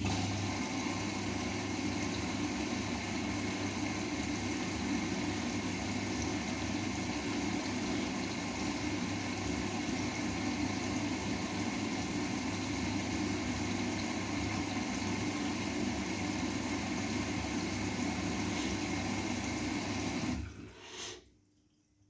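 Bosch WGA25202TR washing machine with water rushing through it: a steady rush over a low hum that starts suddenly and cuts off abruptly about twenty seconds in, followed by a short blip.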